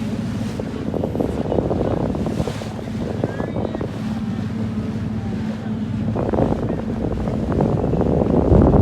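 Wind buffeting the microphone over a steady low engine hum, as aboard a boat on open water, with a stronger gust near the end.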